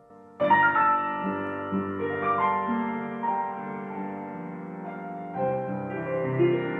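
Grand piano played solo: a held chord dies away, then about half a second in a loud chord opens a new phrase of single notes and chords. A fuller, deeper chord comes in with the bass near the end.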